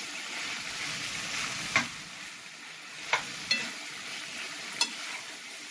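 Chicken and bell-pepper strips sizzling in a frying pan while a metal spoon stirs them, with four sharp clinks of the spoon against the pan.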